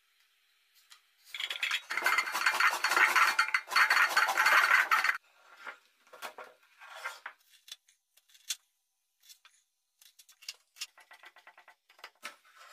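A vegetable peeler scraping the skin off a white radish in rapid strokes, loud for a few seconds. Later a kitchen knife chops green chillies on a wooden cutting board in quick, light taps.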